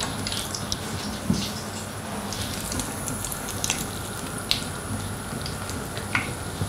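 Hot oil sizzling steadily around pampushky donuts deep-frying in a pan, with a few light clicks scattered through.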